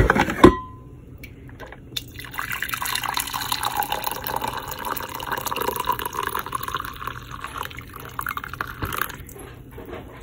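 Two sharp clinks, the second with a brief ring, then coffee pouring from a coffee-maker carafe into a ceramic mug. The pour runs steadily for about seven seconds and stops near the end.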